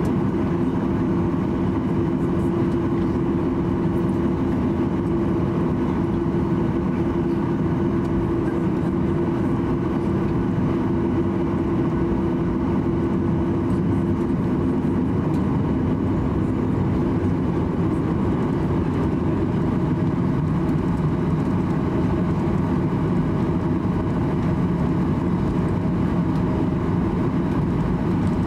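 Cabin noise inside a Boeing 737-800 while taxiing: a steady rumble and hum from its CFM56-7B engines at taxi thrust. A steady humming tone in the noise fades out about halfway through.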